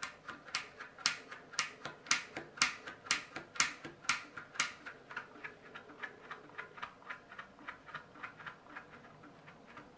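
Sharp ticking clicks at an even rate of about two a second, loud for the first half and fainter after about five seconds in.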